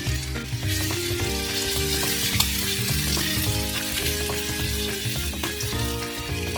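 Sliced new ginger sizzling in a pan as it cooks down in its seasoning for tsukudani, stirred, with a steady hiss and small scattered clicks.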